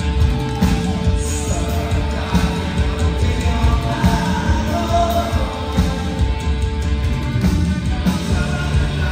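Rock band playing live through a concert PA: electric guitar, bass guitar and drums, with one long held note over the beat that stops about seven seconds in.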